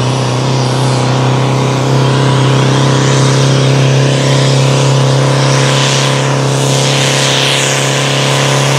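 A competition pulling tractor's engine under load during a pull, running loud and steady at an unchanging pitch.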